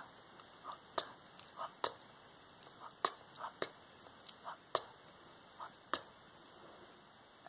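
Close-mic ASMR whispering in short, soft bursts, with about six sharp clicks spread unevenly through it, roughly one a second.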